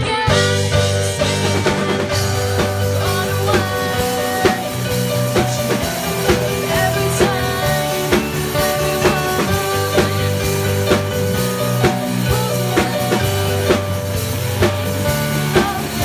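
A live band playing, with a drum kit keeping a steady beat under sustained bass and melody notes, captured in a poor-quality recording.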